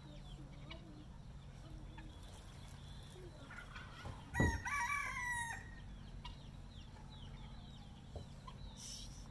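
A rooster crows once, about four seconds in, in a single call of about a second that begins with a sharp thump. Faint chirps are heard throughout.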